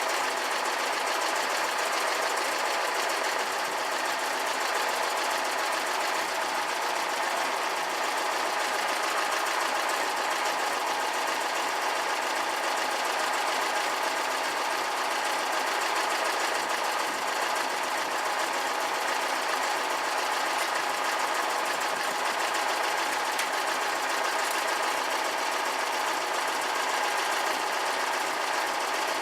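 Air-cooled VW flat-four engine of a Karmann Ghia running steadily, with a fast, even mechanical clatter.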